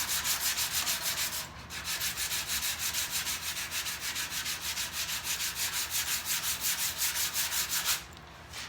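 Sandpaper rubbed back and forth over cured Bondo body filler, sanding it smooth: rhythmic strokes about four a second, a short break about one and a half seconds in, then stopping near the end.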